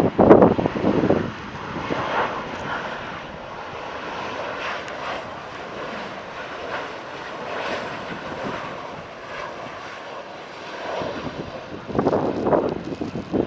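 Boeing 737 airliner on final approach, its twin jet engines a steady distant drone. Gusts of wind buffet the microphone at the start and again near the end, and these are the loudest sounds.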